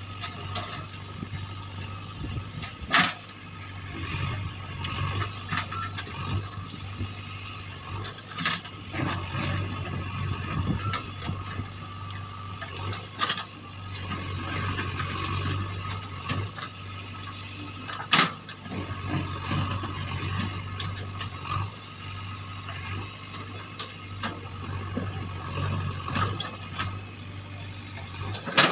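JCB backhoe loader's diesel engine running steadily while it digs, with frequent metallic clanks and rattles and three loud sharp knocks: a few seconds in, about two-thirds through, and at the end.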